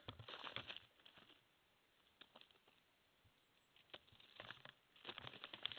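Near silence, with a few faint rustles and light clicks at the start and again near the end.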